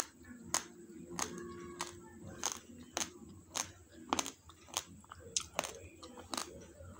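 Raw basmati rice grains being chewed, a crisp crunch between the teeth about every half second.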